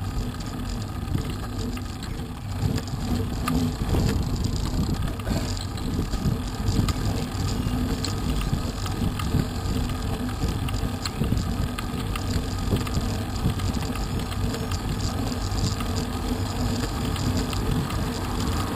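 Steady rumble of a road bicycle's tyres rolling on tarmac, with small irregular rattles, picked up through a camera mounted on the bike frame.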